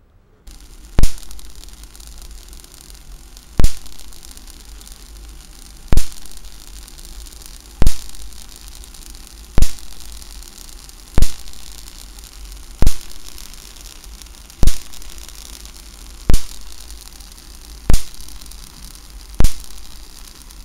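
Wimshurst machine's spark gap cracking as sparks jump between the brass discharge balls, eleven sharp cracks about every one and a half to two and a half seconds, coming a little faster after the first few. Between the sparks there is a steady low hum and hiss.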